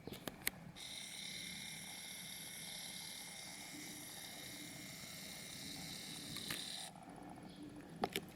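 Faint, steady electronic whine and hiss with several thin high-pitched tones from the Pioneer XDJ-1000 as it boots, starting abruptly after a few light clicks and cutting off suddenly about a second before two more clicks near the end.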